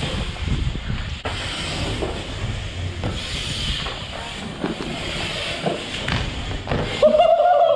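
BMX bike tyres rolling over the concrete of a skatepark bowl, a steady rush with light knocks and wind on the microphone. About seven seconds in, a loud shout or whoop from a rider.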